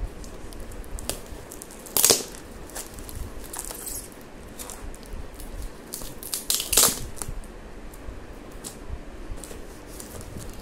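A tape-wrapped brown-paper parcel being cut and torn open with scissors: crinkling and rustling of paper, packing tape and plastic, with two loud tearing bursts, about two seconds in and again near seven seconds.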